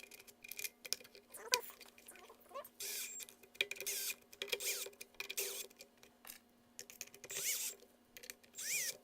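Plastic parts of a miter saw handle being fitted back together by hand: a string of irregular squeaks, scrapes and small clicks.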